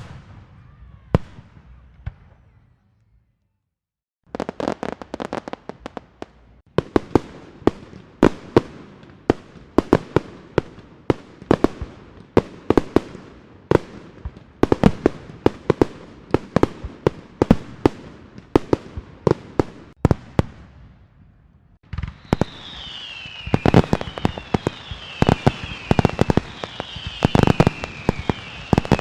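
Fireworks going off. A few scattered bangs, a short silent gap, then rapid pops and bangs, several a second. About 22 s in, a new burst brings repeated falling whistles among the bangs.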